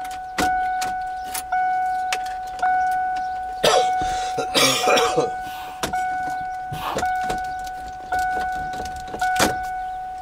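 Ford Bronco's key-reminder chime dinging over and over, about once a second, each ding a single clear tone that fades before the next. The owner traces it to the key-reminder wire grounding out. Scattered clicks and a short stretch of rustling handling about halfway through.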